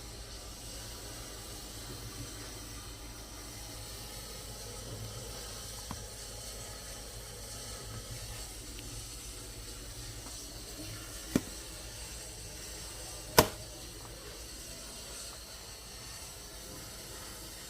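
Fish cooking in a covered pot on the stove, a steady low hiss. Two sharp knocks about two seconds apart cut in past the middle, the second one louder.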